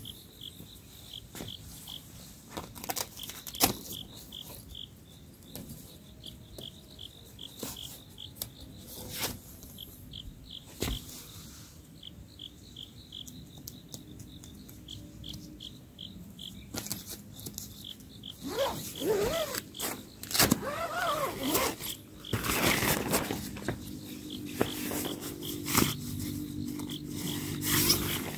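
Crickets chirping in a steady pulsing rhythm, with scattered knocks and scrapes. Partway through the chirping stops, a few short calls rising and falling in pitch are heard, and louder rustling follows.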